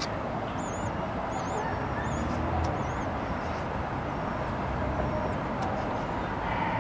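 Several short, thin, high-pitched chirps from downy common kestrel chicks begging as the adult feeds them in the nest, over a steady rush of city background noise with a low hum. The chirps fall in the first three seconds.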